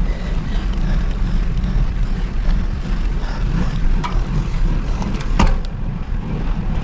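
Wind and road noise rumbling steadily on the microphone of a camera riding along on a road bicycle, with a sharp click a little past five seconds in.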